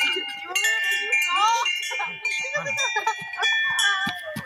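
Several ringing chime tones that overlap and hang on, with fresh strikes a few times, over children's squealing voices.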